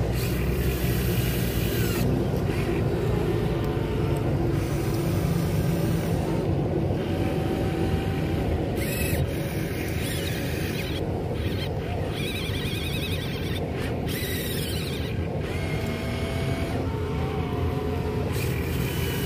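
Small electric motors of a radio-controlled excavator whining over a steady low hum. The whine rises and falls in pitch several times as the boom and bucket dig and swing.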